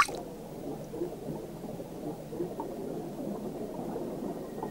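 Low, muffled churning and bubbling of water as heard underwater, around a swimming anaconda.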